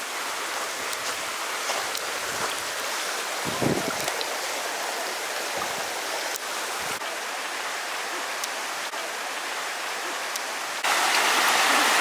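Mountain stream flowing at a ford: a steady hiss of running water that turns abruptly louder near the end.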